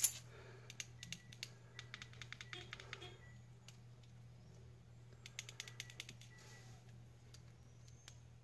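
Two bursts of light, rapid clicking, one in the first three seconds and another around the middle, over a steady low hum.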